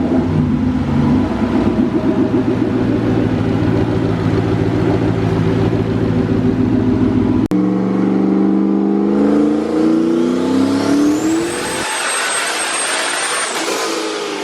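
Mustang engine running on a chassis dyno: it runs steadily, then after a cut it revs up in a rising full-throttle pull. A high whine climbs and holds near the top of the pull before the engine note falls away.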